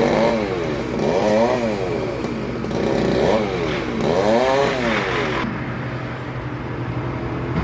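Chainsaw revving up and down, its pitch rising and falling four times over about five seconds, then running steadier and lower for the last two seconds.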